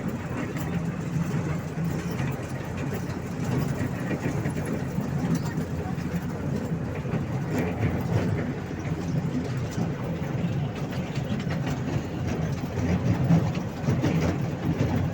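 Toy train running: a steady rumble with faint scattered clicks.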